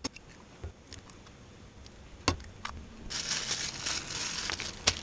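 Breakfast handling at a camp stove: an egg cracked on the rim of a pan at the start and a few sharp knocks of utensils. From about three seconds in comes a crackling rustle as crisp bacon strips are moved onto paper plates, ending in a sharp knock.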